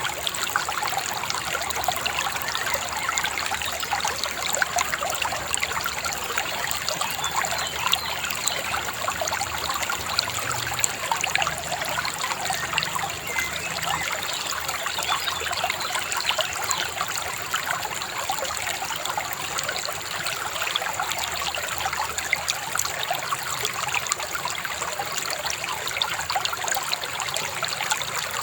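Shallow river babbling and trickling steadily over stones, an even splashing with no pauses.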